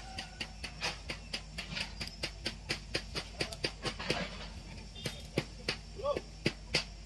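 Rapid, regular ticking, about four sharp clicks a second, over a low steady hum.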